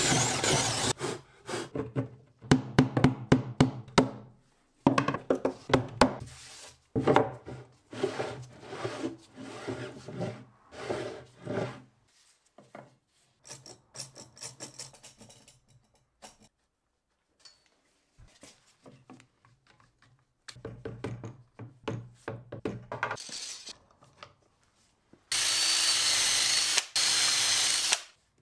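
Cordless drill-driver driving screws into plywood, the motor running in short bursts with knocks and handling of wood and clamps in between. Near the end the drill runs steadily for about three seconds.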